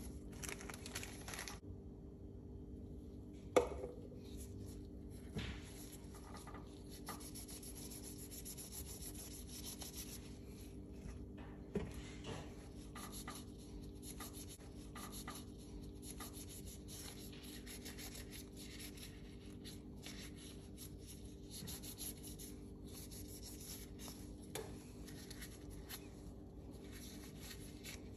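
Gloved hands handling and working on the steel parts of a Tanfoglio Stock 2 pistol: soft rubbing and scraping, with a few sharp clicks of metal parts, over a faint steady hum.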